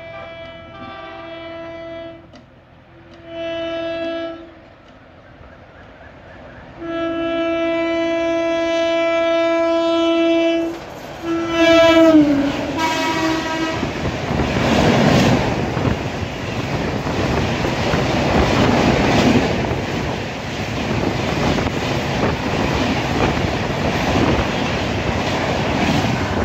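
WAP-5 electric locomotive horn sounding several times as the express approaches at speed, one blast held for a few seconds. A last blast drops in pitch as the locomotive passes. Then the coaches rush past with a loud, steady roar of wheels and air.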